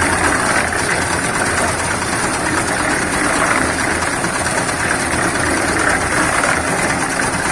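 Diesel engine of a portable concrete mixer running steadily.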